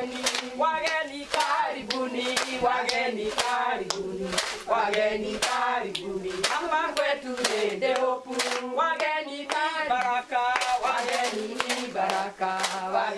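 A group of women singing a song together, with steady rhythmic hand clapping keeping the beat.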